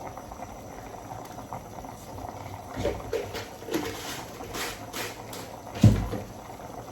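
A pot of soup bubbling on the boil. From about three seconds in come a few short taps and plops, and a dull thump near the end is the loudest sound.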